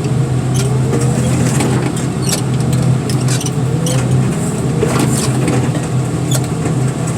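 Heavy equipment engine running steadily under work, with a few faint rising whines and scattered sharp clanks.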